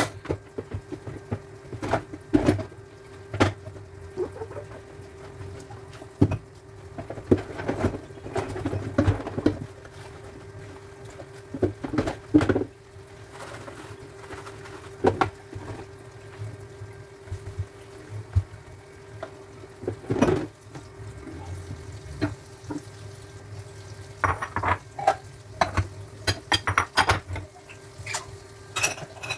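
Dishes being washed at a kitchen sink: scattered clinks and knocks of dishes and a pan being handled, with spells of running water, over a steady hum.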